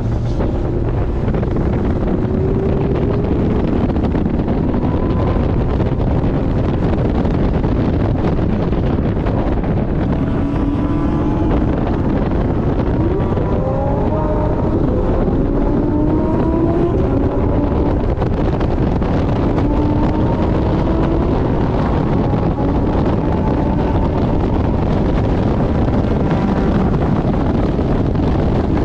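Porsche 718 Boxster GTS driven hard on a race track, heard from onboard: heavy wind and road noise over the engine, whose pitch climbs and drops repeatedly as it revs and shifts through the gears, most plainly in the middle part.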